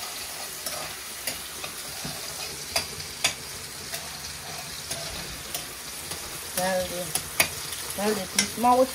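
Food sizzling as it fries in a pan, stirred with a cooking utensil that clicks and knocks against the pan now and then.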